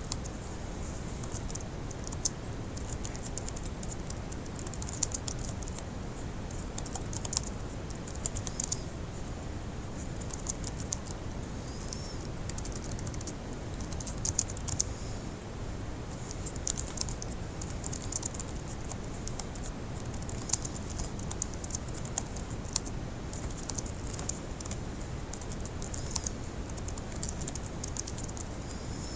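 Fast typing on a laptop keyboard: quick runs of key clicks in clusters, with short pauses between them.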